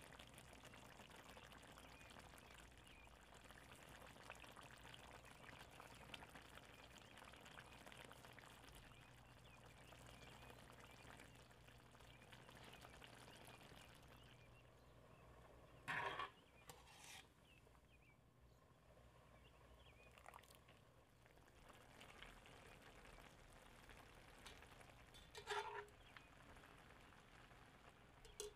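Near silence with a faint sizzle from a pan of meat curry cooking, broken by two brief clinks of a utensil against the metal pan, about halfway through and near the end.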